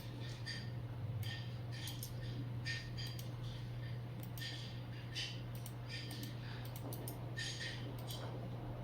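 Automatic towel packaging machine running: a steady low hum with irregular sharp clicks and short ticks from its moving parts.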